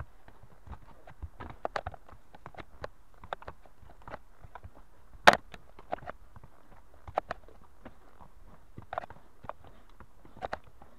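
Pony hooves at a walk on a rooty dirt forest trail: irregular footfalls and knocks. One sharp, loud knock comes about five seconds in.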